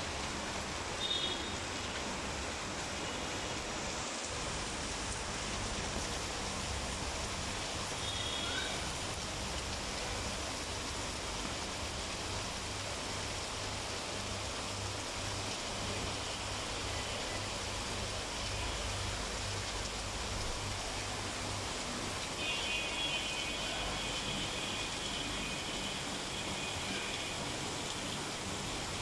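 Heavy rain falling steadily on rooftops, an even hiss with no letup. A few short high-pitched tones sound over it, the longest lasting several seconds near the end.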